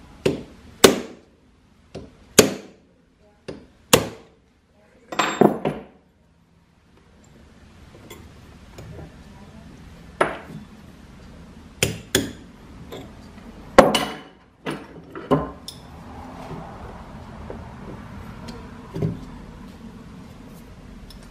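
Hammer striking the metal parts of an old Pickering steam-engine governor to knock them loose during disassembly: sharp separate taps, a quick run of them in the first few seconds, then scattered taps after a pause.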